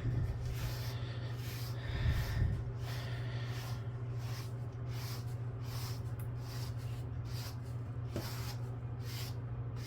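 Brush strokes through a cat's fur during grooming: a repeated soft swishing, about two to three strokes a second, over a steady low hum, with a brief louder rustle about two seconds in.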